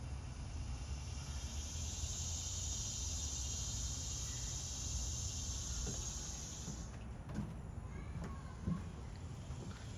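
Outdoor ambience with a low rumble of wind on the microphone and a steady high insect drone that cuts off abruptly about seven seconds in, then a few soft knocks.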